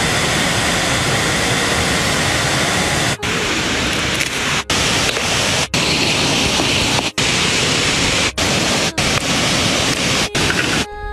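Loud, steady rush of running water from a rocky stream and small waterfall, with water pouring over the rocks. The noise drops out for a split second about seven times.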